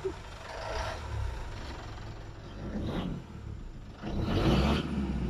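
Mitsubishi car engine being revved in short blips over a low idle, the strongest rev about four seconds in.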